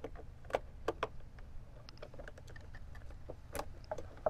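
Scattered light clicks and taps of a keyed lock cylinder being handled and pushed into a drilled hole in a plastic trim panel, with a steady low rumble underneath.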